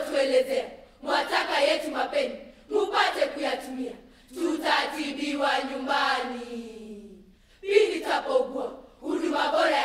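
Voices chanting in short, shouted phrases with brief pauses between them, one longer phrase in the middle falling in pitch.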